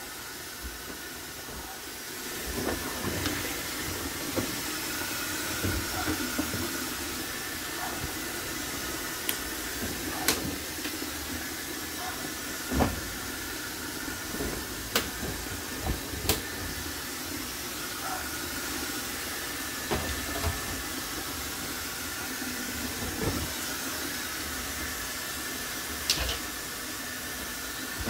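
Brastemp BWK14 top-load washing machine filling: a steady hiss of water spraying into the drum, with scattered thuds and clicks as jeans are dropped in.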